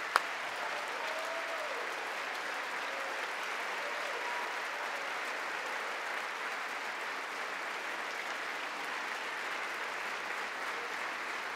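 A chamber full of people applauding, a steady sustained ovation. Right at the start, one sharp hand clap sounds close to the microphone.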